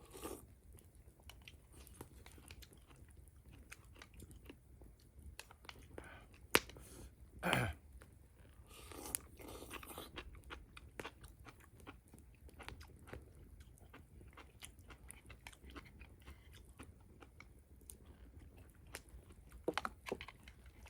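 A person chewing and biting food close to the microphone, with many small clicks and a single sharp click about six and a half seconds in.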